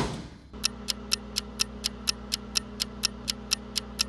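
A microwave oven door shuts with a thump. About half a second later the oven starts running with a steady hum and an even ticking, about four ticks a second.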